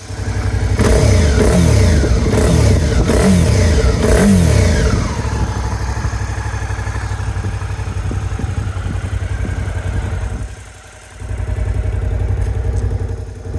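Suzuki DL650 V-Strom's 645 cc V-twin engine being blipped with the throttle several times in quick succession, each rev rising and falling. It then settles back to a steady idle.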